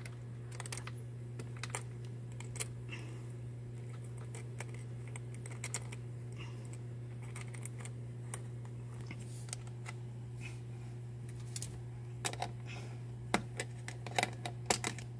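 Scattered light clicks and taps of battery cables and metal terminal hardware being handled, thicker near the end, over a steady low hum.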